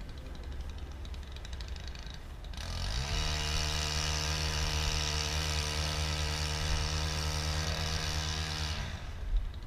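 A motor spins up about two and a half seconds in, runs at a steady pitch with a hiss for about six seconds, then winds down near the end.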